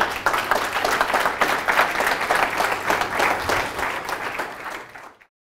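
Audience applauding, a dense crowd of handclaps that thins out near the end and then cuts off suddenly.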